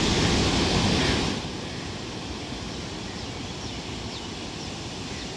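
Sea surf washing onto a sandy beach, a steady wash of noise that drops noticeably in level about a second in.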